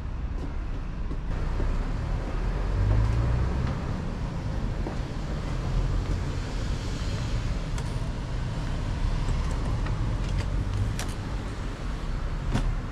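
Steady low outdoor rumble, with a few sharp clicks in the second half as a card-key door lock and lever handle are worked and the door is opened.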